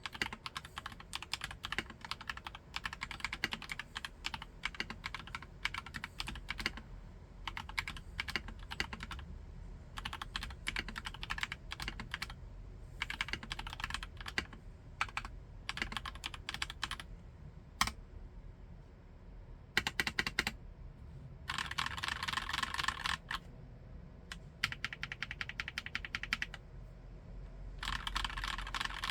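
Typing on an ABKO K660M-L68 mechanical keyboard with Kailh Nuit switches: a steady stream of key clacks. It thins to a few scattered keystrokes a little past the middle, then picks up into two denser, louder flurries near the end.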